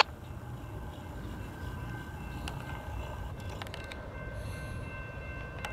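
Faint, distant low rumble of an approaching freight train, with faint steady high-pitched tones joining about two and a half seconds in and a few light clicks.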